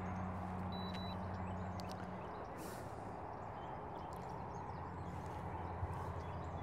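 A steady low hum over a faint even rush of background noise, with a few light clicks and knocks scattered through it.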